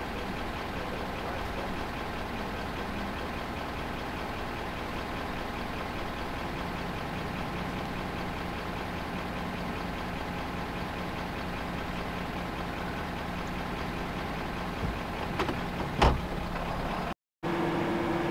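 Truck engine idling steadily, with a short sharp knock about sixteen seconds in. After a brief break near the end, a steady hum with one clear tone.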